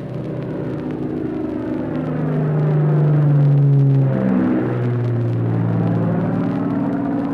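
Propeller aeroplane engine sound effect played from a 1945 shellac 78 rpm record: the plane dives low and passes over, its drone growing louder to a peak about four seconds in, then dropping in pitch as it goes by.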